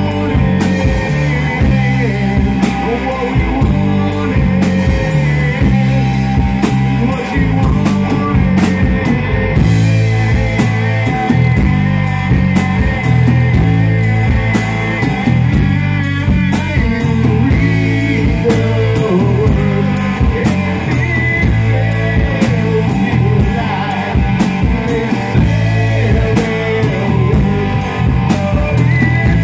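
Live rock band playing a song: a singer on microphone over electric guitar through a Marshall amp, bass guitar and a drum kit keeping a steady beat.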